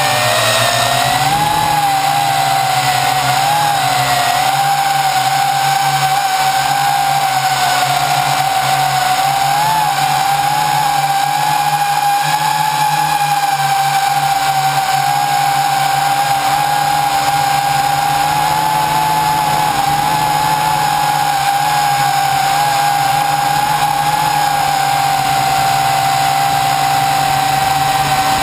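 RC quadcopter's electric motors and propellers whining loudly, heard up close from a camera mounted just under the rotors. The pitch wavers for the first ten seconds or so, then holds steady.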